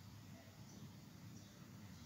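Near silence: faint, irregular bubbling of a thick, oily red chili masala simmering in a pan.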